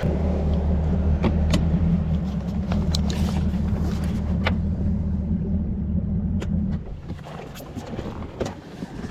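Boat's outboard motor running under way, a steady low drone that drops off about seven seconds in as the boat comes off plane, with scattered sharp knocks over it.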